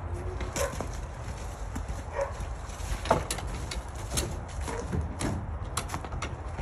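Scattered knocks and clanks of work at a shed's base as a farm jack is worked and rollers are set under it, over a steady low rumble. The loudest knock comes about three seconds in.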